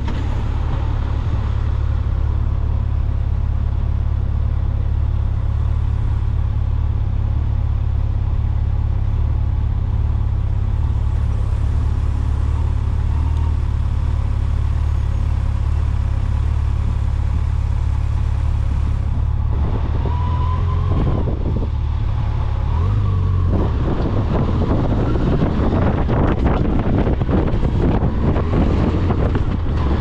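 Strong gusty wind buffeting the microphone of a moving vehicle, a loud, steady low rumble over road and engine noise. A couple of short pitched whines come about two-thirds of the way through.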